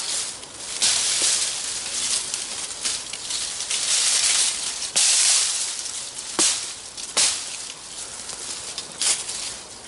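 Dry brush rustling and crackling as branches are pulled and bent in a pile of dead twigs and leaves, with several sharp cracks of breaking wood, the loudest about halfway through.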